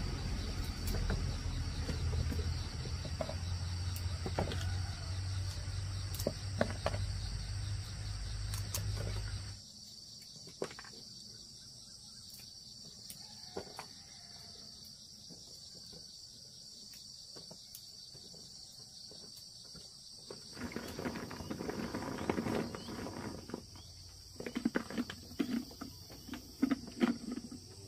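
Steady high chirring of insects throughout, over a low rumble that stops about ten seconds in. Over the last several seconds come light rustling and clicks as fresh red chilies are handled and packed into a glass jar.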